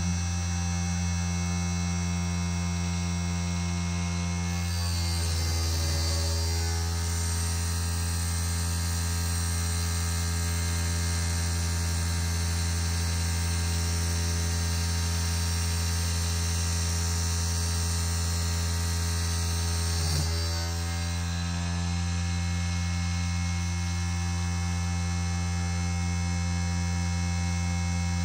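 Small CNC1610 machine converted to an NC lathe, running with a steady electric-motor hum that has many overtones. From about five seconds in until about twenty seconds in the tone shifts and a higher hiss is added, then it returns to the steady hum.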